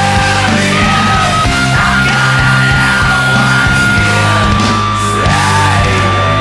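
Loud heavy rock music playing as a soundtrack.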